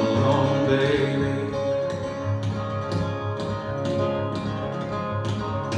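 Acoustic guitar strummed in a steady rhythm, about three strums a second, chords ringing between strokes.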